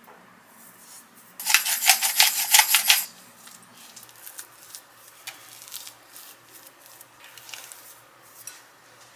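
Salt and pepper going into a bowl of mashed potato: a loud, gritty crackle lasting about a second and a half. Then a spoon stirs the mash, with soft scrapes and light clinks against the glass bowl.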